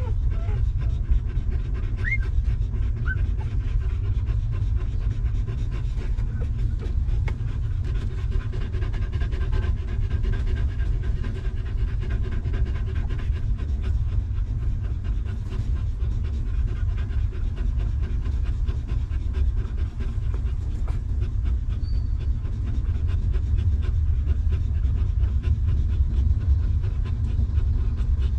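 A nursing mother dog panting steadily and rapidly, close to the microphone. A short, high, rising squeak from a newborn puppy comes about two seconds in.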